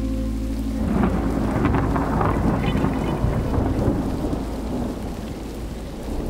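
A held music chord breaks off about a second in, giving way to steady rain with rumbling thunder, slowly fading.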